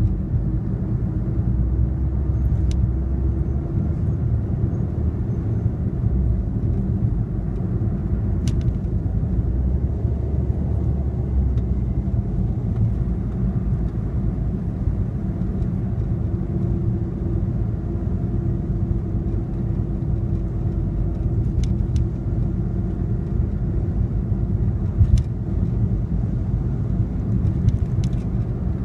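Car driving on a city street: a steady low rumble of engine and tyre noise, with a few faint clicks.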